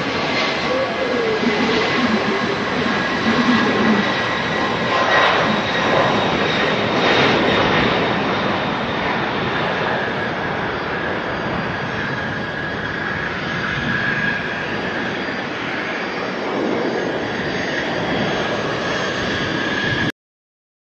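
Airbus A300-600ST Beluga's twin turbofan engines at takeoff power: a steady jet roar with a high whine, cutting off suddenly near the end.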